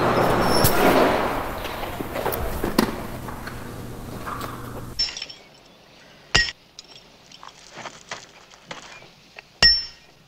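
Muffled rustling and knocking of the microphone rubbing against fabric, cutting off abruptly. Then a hammer strikes metal leg chains twice, about three seconds apart, each a sharp clink with a short ring, with fainter metal ticks between.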